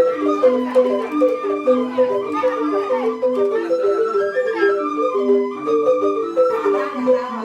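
Rindik, the Balinese bamboo xylophone, playing a fast, busy pattern of quick struck notes in a repeating interlocking melody, with a flute line sounding above it.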